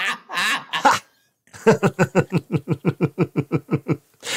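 A man laughing in a fast run of about fifteen short pulses, some seven a second, lasting a little over two seconds, after a brief bit of voice at the start.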